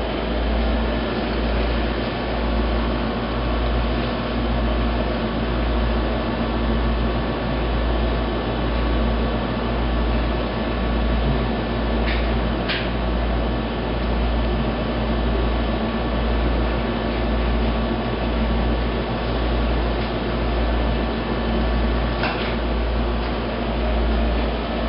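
Steady low hum and hiss of background room noise, like a running air conditioner or fan, with a low rumble pulsing a little over once a second. Faint clicks come about halfway through and again near the end.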